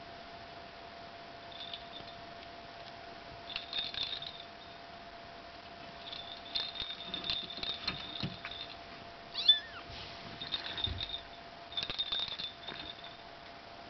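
Bengal kittens mewing in short, high-pitched bursts, with the loudest single mew about nine and a half seconds in.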